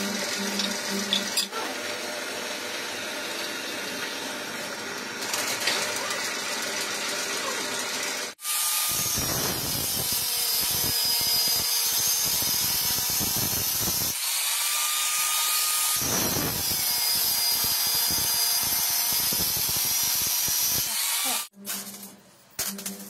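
A drill press boring into a thick steel plate, running steadily for about eight seconds. It then gives way to an angle grinder cutting through a steel chain sprocket, a louder, higher whine that winds up at its start and again partway through after a brief pause. Near the end come a few light metal clinks as washers and small parts are set down on a steel table.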